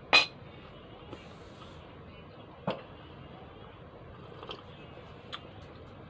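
Close-up eating and drinking mouth sounds while sipping coffee and chewing: a sharp smack just after the start, another about two and a half seconds in, and a few fainter clicks later.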